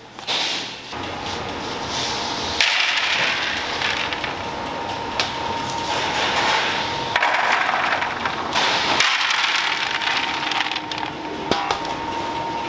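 Rustling and crackling of a large plastic sheet and dry food being handled, in swells of a second or two, over a steady hum.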